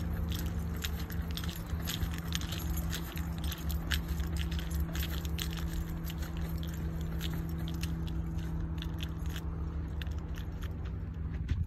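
Footsteps crunching on a dry, sandy dirt trail, with many short irregular crunches and crackles, over a steady low hum.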